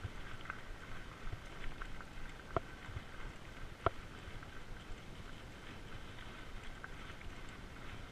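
Fat bike rolling over loose gravel: the wide tyres crunch steadily, with scattered small clicks of stones and rattles from the bike over a faint steady whine. Two sharper knocks about two and a half and four seconds in.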